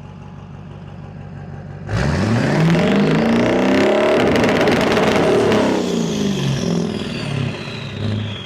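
Built 6.0 Powerstroke V8 turbodiesel idling, then revved hard about two seconds in and held against the rev limiter for several seconds before dropping back toward idle. It is obnoxiously loud through the freshly fitted exhaust elbows and tips, with a high whine gliding down as the revs fall.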